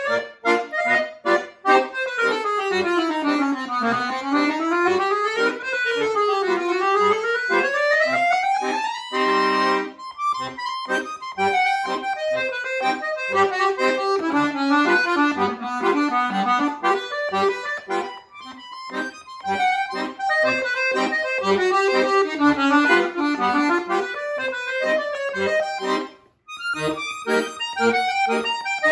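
Chromatic button accordion played solo: rapid scale runs sweep up and down for the first several seconds, then a held chord, then a quick melody over steady bass notes, with a brief break near the end.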